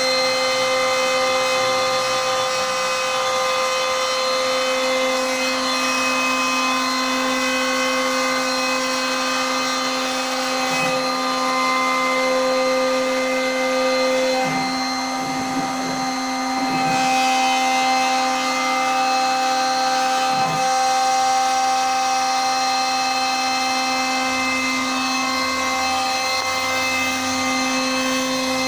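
CNC router spindle running with a steady high whine made of several held tones over the hiss of the bit cutting MDF. The tone mix and cutting noise shift about halfway through, with a brief dip, as the machine's load changes.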